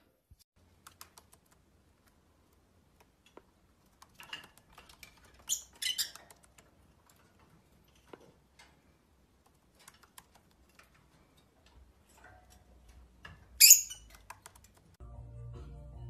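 Small pet parrots, with scattered soft clicks and taps and a few short high chirps around the middle. One loud shrill chirp comes near the end, and a low steady hum starts just before the end.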